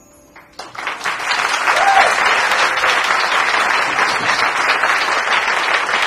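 Audience applauding loudly, starting about half a second in as the band's last held notes die away, with one voice briefly calling out over the clapping about two seconds in.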